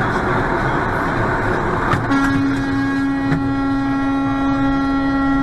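Steady road and engine rumble inside a truck cab. About two seconds in, a vehicle horn starts and is held as one unbroken steady tone.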